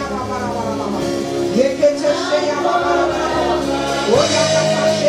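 Worship song: voices singing long held notes, sliding into some of them, over steady instrumental accompaniment.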